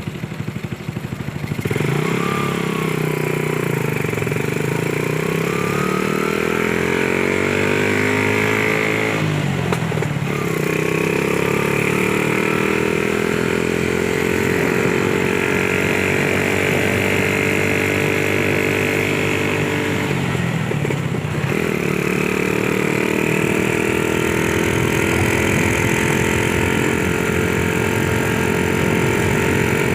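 Small motorcycle engine running under way, its pitch slowly sinking and climbing with engine speed, with two brief dips like gear changes, about ten seconds apart.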